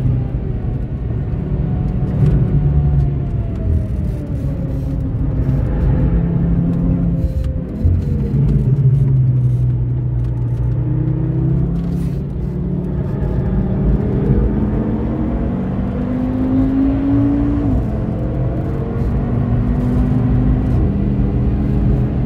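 2013 Audi TT RS's tuned turbocharged five-cylinder engine heard from the cabin at speed: the engine note falls as the car brakes and shifts down, then climbs again under hard acceleration, with an upshift about three-quarters of the way through and the pitch rising once more.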